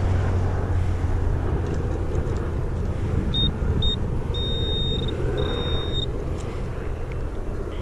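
Handheld metal-detector pinpointer probing the soil: two short high beeps, then two longer steady tones, about three to six seconds in, signalling a metal target at its tip. A steady low rumble runs underneath.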